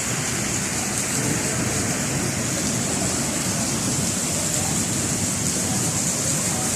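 Heavy rain falling in a steady downpour, an even hiss without breaks.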